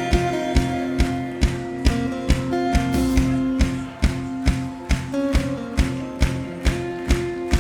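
Live worship band playing instrumental music: sustained chords with guitar over a steady drum beat of about two beats a second.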